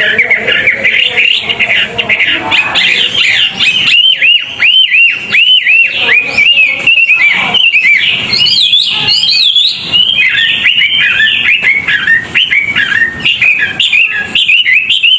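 A songbird singing a fast, dense song of rapid, repeated down-sweeping whistled notes, with a run of higher up-and-down notes around the middle.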